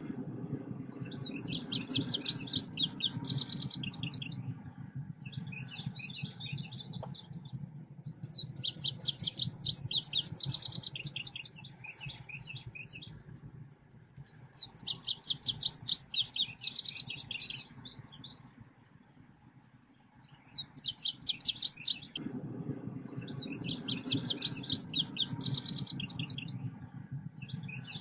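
Selendang biru bird singing: bursts of rapid high chirping phrases, each a couple of seconds long, repeat every six or seven seconds, as lure song for trapping and tutoring birds. A low steady hum runs underneath and drops away for a few seconds midway.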